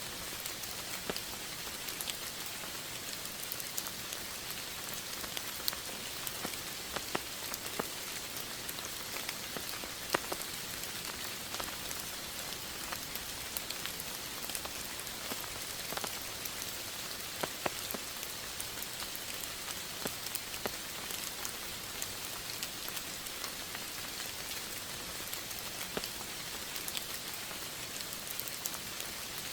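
Steady rain falling on a surface, an even hiss dotted with many distinct drop ticks.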